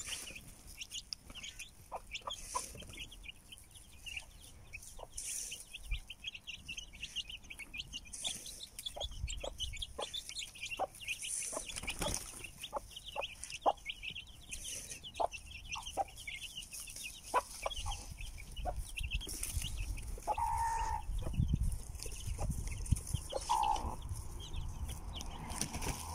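Domestic chicken chicks peeping continuously in a dense chorus of short high chirps, with scattered sharp taps. Two lower clucks come near the end.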